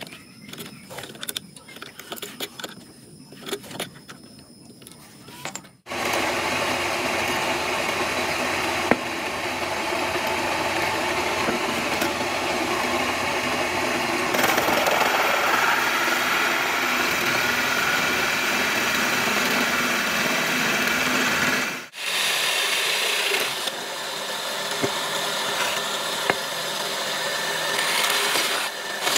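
Drill press running with a homemade cup-shaped wood punch cutter boring into a wooden plank: a steady motor and cutting noise. It starts about six seconds in, after a few small clicks and knocks as the cutter is fitted in the chuck, and cuts out briefly about twenty-two seconds in.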